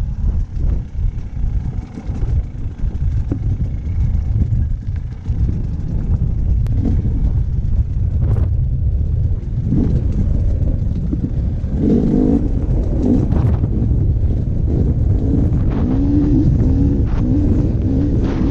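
Dirt bike engine under way on a trail over a heavy low rumble; from about ten seconds in, its note rises and falls repeatedly in quick revs.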